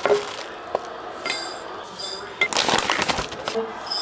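Plastic seed pouch rustling as dry sprouting seeds are poured into a glass mason jar, the seeds rattling and clinking against the glass.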